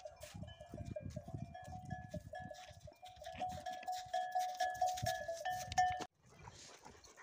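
Metal sheep bells clinking and ringing in short repeated notes as the flock grazes, cutting off suddenly about six seconds in.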